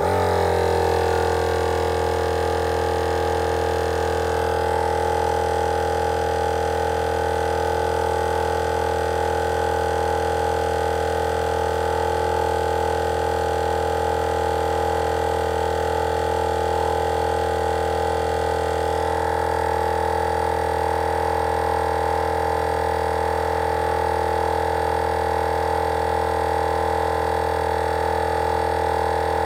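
Wolfbox dual-cylinder portable air compressor running steadily with a constant hum, inflating a 40-inch tire from empty. The sound starts abruptly at the beginning.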